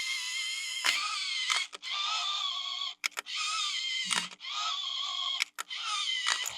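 Small electric motor and plastic gearbox of a toy RC vehicle whining in short runs, cutting off abruptly several times with a click at each stop.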